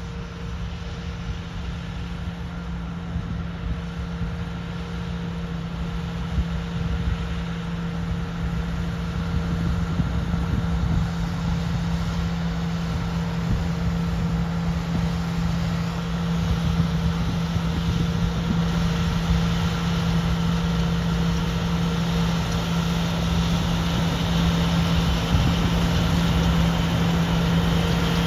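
John Deere T670 combine harvester running steadily: a constant engine hum with a steady whine above it, growing gradually louder.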